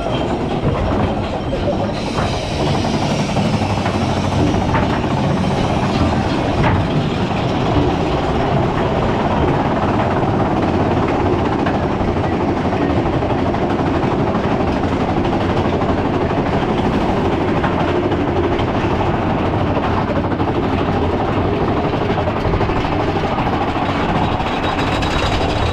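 Big Thunder Mountain mine-train roller coaster running along its track, heard from on board: the steady noise of the wheels on the rails.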